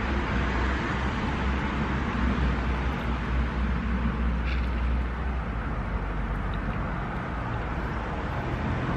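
Steady outdoor background noise: an even hiss with a low hum underneath, like distant traffic.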